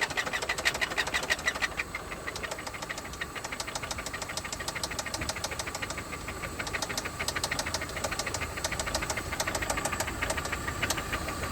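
Toyota 5S-FE four-cylinder engine in a 1995 Camry running with a rapid, regular knocking, stronger in the first two seconds and again in the last few. The knock comes from internal engine damage: the owner felt something in the motor let go.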